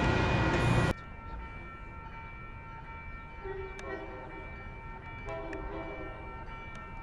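Loud rushing noise of a train passing the grade crossing, cut off abruptly about a second in. After it, a distant train horn sounds twice, each blast a short chord of several notes, over quiet station ambience.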